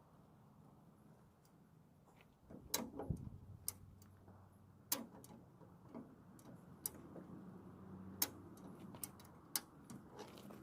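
Scattered sharp metal clicks and taps of tire-changing hand tools, starting about two and a half seconds in, as the car jack is worked down and the wheel's lug nuts are loosened.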